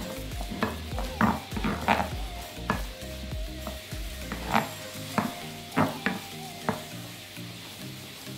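Wooden spoon stirring and scraping soft mashed potato in a glass bowl: repeated short scrapes, roughly one every half second to second.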